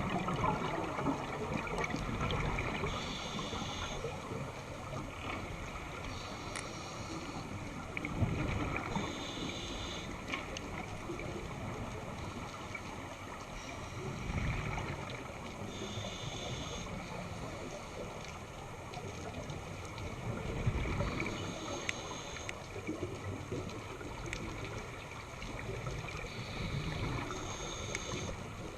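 Scuba diver breathing through a regulator underwater: a hiss on each inhale alternating with a low gurgle of exhaled bubbles, about one breath every six seconds, over a steady underwater noise.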